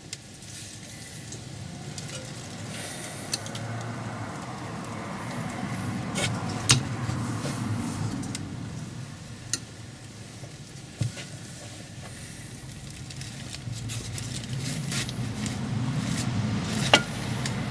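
Wheel nut being turned with a small bar over a stack of washers, slowly drawing a greased, splined wheel stud into an MGA rear hub: a low, rough grinding of metal on metal that swells and fades, with a few sharp clicks of tool and washers.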